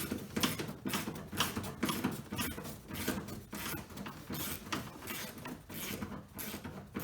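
Hand socket ratchet clicking in quick, irregular strokes while turning a 10 mm bolt deep inside a car door.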